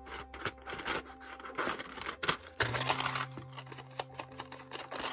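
Quick, irregular taps and rustles of paper as ink is dabbed onto a white edge of the paper-covered folder, with soft background music beneath.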